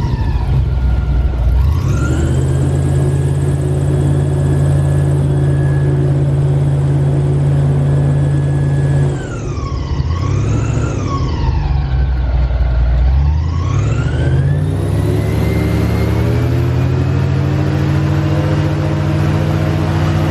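Airboat engine and propeller running loud and steady. The pitch dips and climbs again near the start, holds for several seconds, then falls and wavers about halfway through and rises back up as the throttle is opened again.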